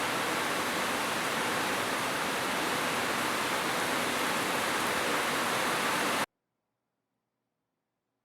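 Steady, dense hiss of heavy rain that cuts off suddenly about six seconds in.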